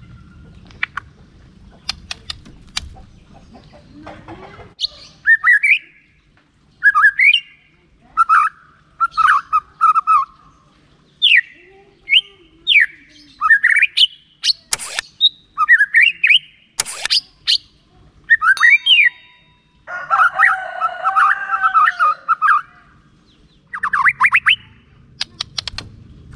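White-rumped shama singing: short phrases of clear whistled notes, many sliding upward, mixed with sharp clicks and harsher notes, then a longer tangled warbling phrase about two-thirds of the way in. The first few seconds hold only a few sharp clicks before the song starts.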